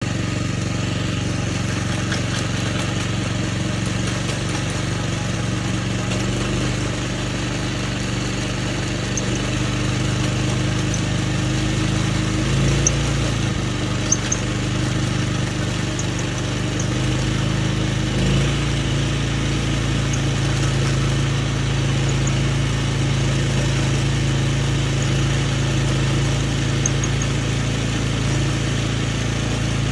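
8 HP Little Beaver earth auger's small engine running steadily under load as the auger bores through root-filled ground. Its pitch sags and shifts as the bit bites into roots, and there are two sharp knocks a little before halfway.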